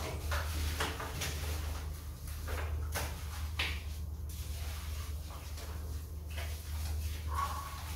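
Hands scrubbing shampoo lather into a wet Rottweiler puppy's coat: repeated wet rubbing strokes over a steady low hum. Near the end the puppy gives a short whine.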